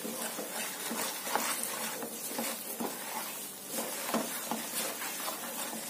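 A wooden spoon stirring a thick chilli-spice paste in hot oil in a steel pan, scraping against the pan again and again, over a light sizzle of the oil.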